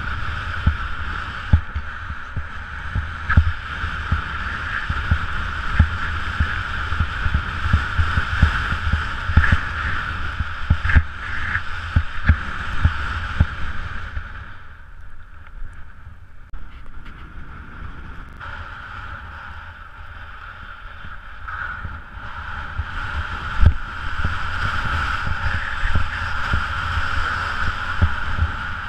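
Skis running over powder snow and air rushing past a body-worn GoPro: a steady muffled rush with irregular low thumps, easing for several seconds about halfway through.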